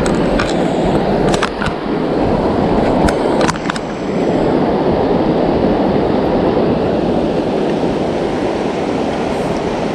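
River water rushing steadily, with a few short knocks in the first few seconds.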